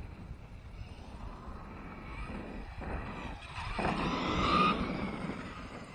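Electric RC truck running on dirt, its motor whining over the noise of its tyres, swelling to its loudest about four and a half seconds in and then fading as it moves off.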